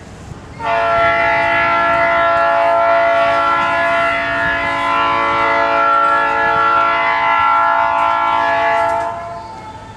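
A locomotive air horn sounding one long blast of several notes at once, starting about half a second in and cutting off near the end.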